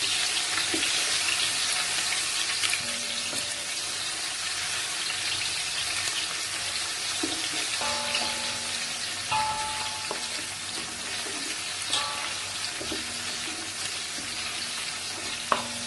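Sliced onions sizzling steadily in hot oil with whole spices in a large cooking pot, frying toward dark golden brown, with a few light clicks.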